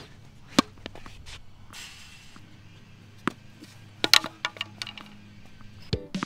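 Tennis ball bounced on the hard court and struck with a racket: a handful of sharp, irregular smacks, the loudest about half a second in and around four seconds in, over quiet background music.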